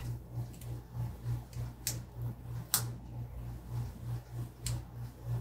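Three sharp clicks as a sheet of planner stickers is handled by hand, over a low hum that pulses about three times a second.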